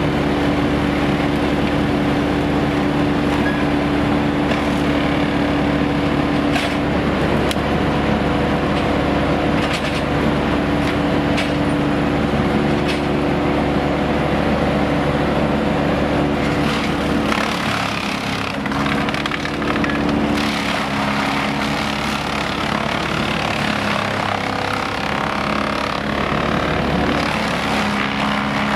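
Wood chipper running hard as a tree is pulled through it, with sharp cracks of wood splitting. About two-thirds of the way through, the engine note drops and the sound turns rougher under the heavier load.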